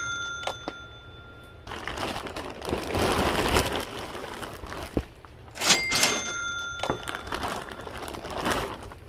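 Items being handled and unpacked: crinkling and rustling, like a plastic bag or wrapping, with two sharp clinks that ring briefly, at the start and about six seconds in.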